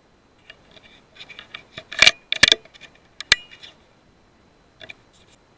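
A run of sharp metallic clicks and clinks from the scoped hunting rifle being handled, loudest about two seconds in, with two faint clicks near the end.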